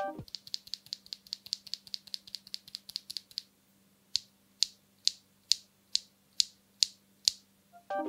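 A loose HMX Swift factory-lubed linear mechanical keyboard switch pressed by hand, clacking: quick light clicks about seven a second for the first three seconds, then after a short pause slower, louder clicks about twice a second. Only a tiny bit of scratchiness and no spring noise.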